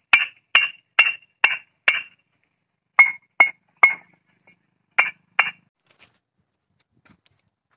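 Two fired red clay bricks knocked together by hand, about eleven sharp clinking strikes with a short, clear ring: six in quick succession, then three, then two. This is the knock test of brick quality; the clear ring is the sign of hard, well-fired brick, and the seller calls the sound super.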